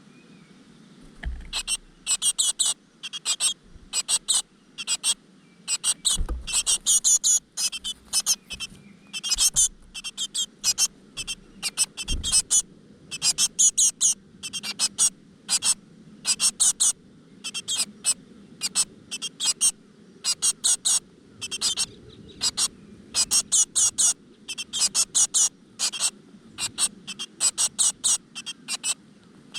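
Great tit nestlings begging: short, high, hissy calls repeated in quick runs of two or three a second, starting about a second in. A few low thumps come through among them.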